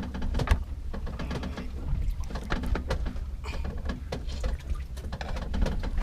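Knife filleting a fish on a cutting board aboard a boat: irregular scraping, clicks and knocks over a steady low rumble from the boat.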